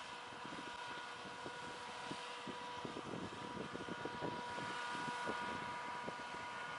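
Takakita SMR1020 harvester running in the field: a steady mechanical whine with irregular knocking and rattling from the working machinery.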